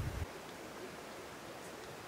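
Wind buffeting the microphone, cutting off a moment in and leaving a steady faint outdoor hiss.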